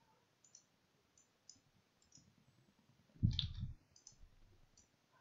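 Faint computer mouse clicks, a few scattered ticks, with one louder click and a low thump about three seconds in.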